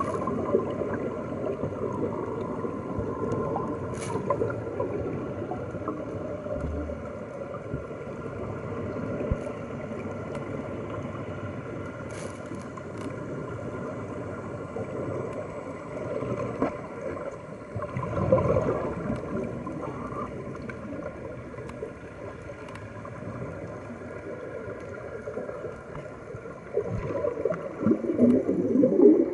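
Underwater recording of steady gurgling and rushing water with air bubbles, over a faint steady hum; the bubbling swells louder about midway and again near the end.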